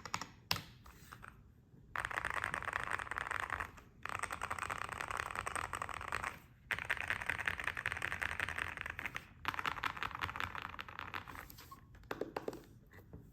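GMK67 mechanical keyboard with Akko Cream Yellow V3 linear switches being typed on fast, in four long runs of rapid keystrokes. A few separate keystrokes come before the runs and a few after them.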